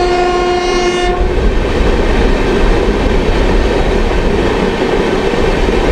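A train horn sounds one steady note and cuts off about a second in, followed by the loud running noise of a train on the rails.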